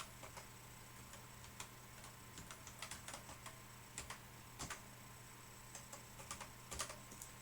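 Keys being pressed on a ZX Spectrum computer keyboard: irregular soft clicks, some in quick runs of two or three, over a steady low electrical hum.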